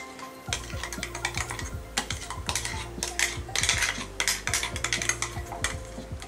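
Ground masala paste being scraped and tapped out of a stainless-steel mixer-grinder jar into a steel bowl: a quick, uneven run of small metal clicks and scrapes. A low steady hum sets in about half a second in.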